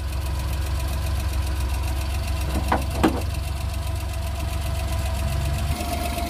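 Suzuki F6A 12-valve three-cylinder engine idling steadily, running again now that the no-start was traced to a blown fuse. Two short sharp sounds come through about three seconds in.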